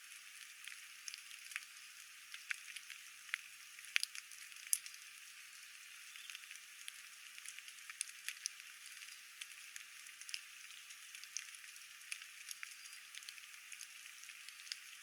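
Steady rain falling, with irregular drops tapping close by, some louder than others.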